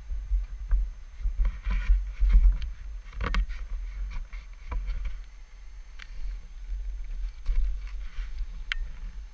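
Low, uneven rumble of a red Honda sport quad's engine running at idle or low speed, with a few sharp clicks and knocks, the loudest about three seconds in.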